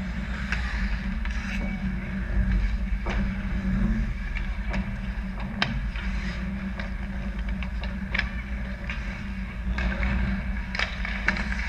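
Ice hockey play close to the net: skates scraping and carving the ice, with several sharp clacks of sticks and puck, over a steady low hum.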